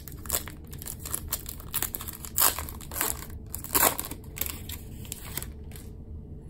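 Foil wrapper of a Topps Chrome Sapphire trading-card pack crinkling and tearing as it is opened by hand, an irregular crackle with two louder rips about two and a half and four seconds in.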